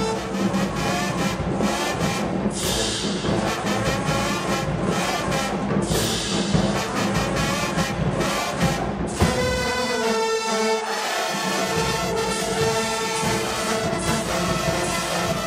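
High school marching band brass section (trombones, sousaphones and marching horns) playing loud, full chords, with sharp drum hits through roughly the first nine seconds; after that the bass drops out briefly and the horns hold sustained chords.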